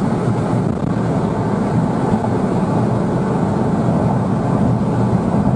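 Porsche Cayenne Turbo's V8 and tyre noise heard from inside the cabin while it drives at a steady speed, an even, unchanging drone.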